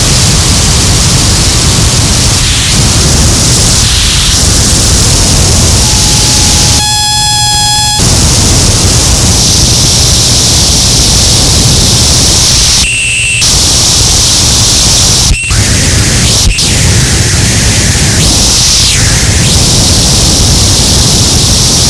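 Harsh noise music: a loud, dense wall of distorted noise. About seven seconds in, a steady tone and then a buzzing tone with overtones cut through it. In the middle come a brief dropout and two sharp clicks, and near the end whooshing tones sweep down and back up.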